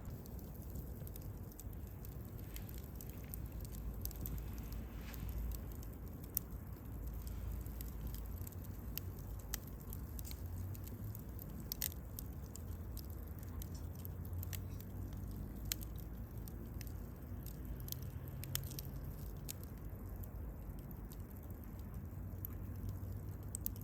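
Wood campfire crackling, with scattered sharp pops over the low steady rumble of the burning fire; a few pops are louder than the rest.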